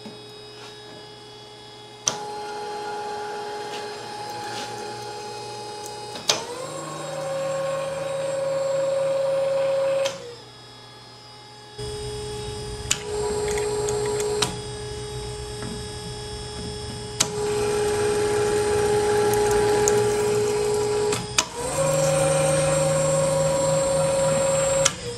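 Flex-arm tapping machine running a 5/8-11 spiral-flute tap into steel, a steady motor whine with a few sharp clicks. The whine steps up to a higher pitch about six seconds in, stops briefly around ten seconds, starts again, and steps up once more near the end.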